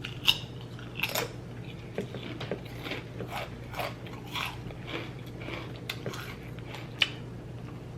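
Close-miked chewing of a mouthful of grinder sandwich: irregular crunches and mouth clicks, a few each second, with a sharper crunch about seven seconds in.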